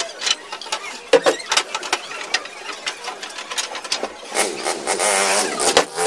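Long wooden boards knocking and clattering against each other as they are handled, with several sharp knocks. Near the end a board drags across the wooden table top for about a second and a half, a scraping sound with a wavering squeak.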